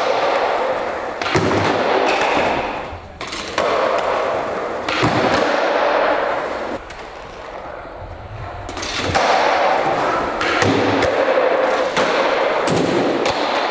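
Skateboard wheels rolling over a bare concrete floor, with several sharp clacks of the board popping and landing on and around a low ledge box.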